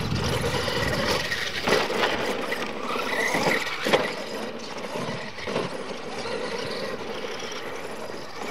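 Radio-controlled scale monster trucks racing on a dirt track: their motors whine and rise in pitch as they accelerate, with the noise of tyres on dirt. Sharp knocks sound as they hit and land off the ramps, the loudest about four seconds in.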